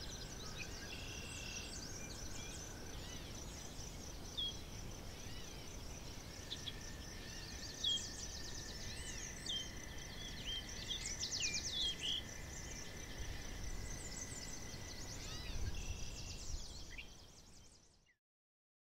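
Birds chirping and whistling over a steady high trill and a low background rumble, fading out near the end.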